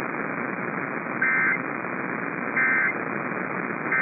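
NOAA Weather Radio SAME end-of-message data tones: three short digital bursts, each about a third of a second long and about a second and a third apart, over steady radio hiss. They mark the end of the alert message just broadcast.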